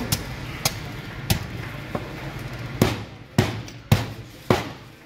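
Regular sharp chopping knocks, a blade striking through onto a cutting board, about every 0.6 seconds, louder in the second half.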